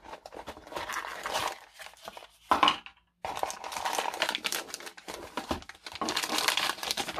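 Packaging crinkling and rustling as the parts of an RC truck sound and light kit are unwrapped by hand, in irregular bursts with a brief break about three seconds in.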